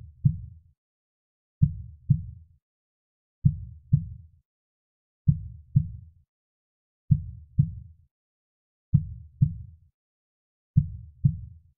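Soft, slow heartbeat: low, dull double beats (lub-dub), one pair about every two seconds, with quiet gaps between.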